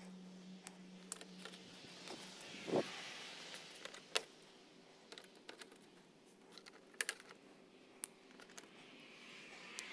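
Scattered light plastic clicks and taps of small push-pin trim clips being handled and pressed into a car's plastic radiator support cover, with one duller knock about three seconds in.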